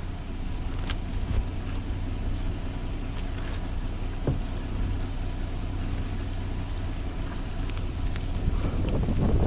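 Steady low hum of a vehicle's engine heard from inside the cab, with a few small clicks.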